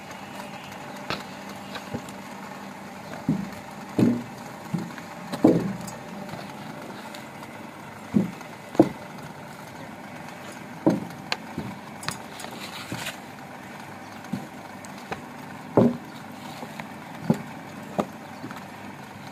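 Electric-motor cow-dung log extruder running steadily, its belt-and-pulley screw drive humming while it pushes out a log of dung. Irregular dull thumps and knocks come every second or two over the hum.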